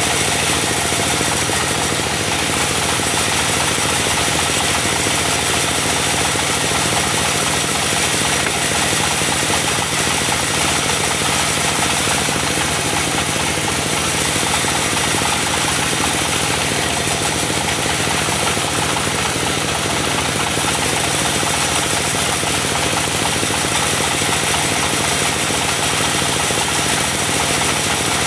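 Diesel engine driving a portable band sawmill, running steadily, with the saw's dense hiss over the engine hum at an unchanging level.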